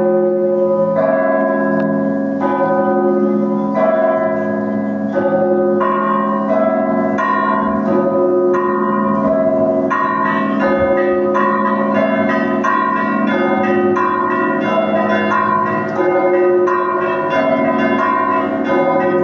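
Russian Orthodox monastery bells ringing: a deep bell's hum holds underneath while smaller bells are struck over and over in a repeating pattern, which grows busier about ten seconds in.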